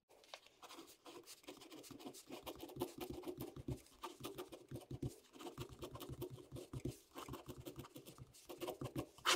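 Ballpoint pen writing capital letters on a sheet of paper: faint, irregular scratching strokes that start about two seconds in.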